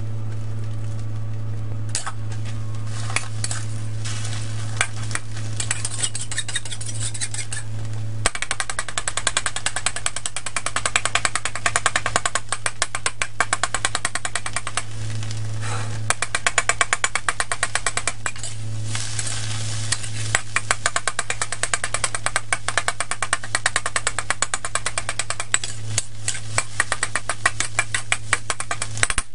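Metal spatula scraping and clicking against a steel wok as it chops scrambled egg into pieces, over a light sizzle. The rapid scraping starts about eight seconds in, and a steady low hum runs underneath.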